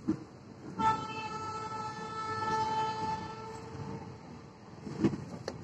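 Train horn sounding one long, steady blast from about a second in for a couple of seconds, over the rumble of a train rolling slowly along a station platform. A couple of sharp knocks come near the end.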